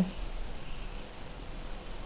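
Faint steady hiss with a low hum: room tone and microphone noise, with no distinct event.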